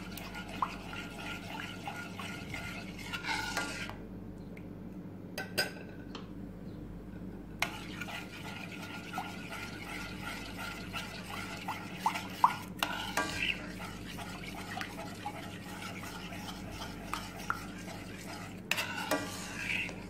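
A metal spoon stirs and scrapes a thick white flour sauce in a steel pan, with small clicks of the spoon against the metal. About four seconds in, the stirring goes quiet for a few seconds, then resumes. A steady low hum runs underneath.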